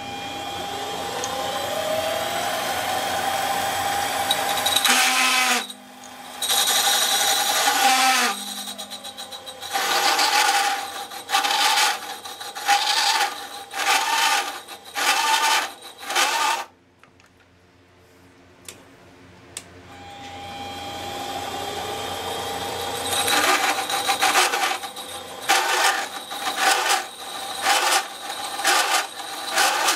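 Metal lathe motor spinning up with a rising whine, then a hole saw fed by hand into the spinning metal disc, cutting in a series of short, loud screeching bursts about a second apart. About halfway through the lathe stops and goes almost quiet. It then spins up again, and the cutting bursts resume near the end.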